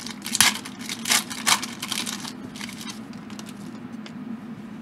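Foil wrapper of a Topps baseball card pack being torn open: three loud rips within the first second and a half, then crinkling that fades to soft rustling as the cards are handled.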